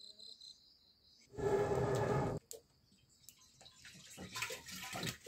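Water poured from a plastic bottle into a metal cooking pot, splashing over the last two seconds or so. About a second and a half in, a loud held pitched call sounds for about a second.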